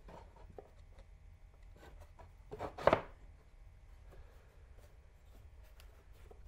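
Plywood drawer panel being fitted into the grooves of a dry-assembled drawer box: light wooden clicks and rubbing, with one louder knock and scrape about three seconds in as it seats.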